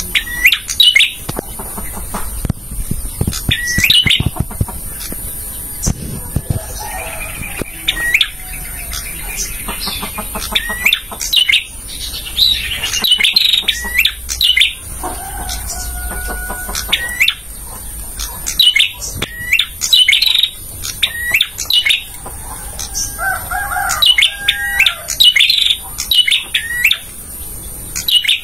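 Male prenjak (prinia) singing: clusters of short, sharp, high chirps repeated every second or two, with some lower, longer notes in between.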